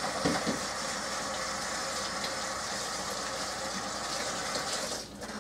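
Water running steadily from a kitchen faucet as hands are washed under it, shut off about five seconds in.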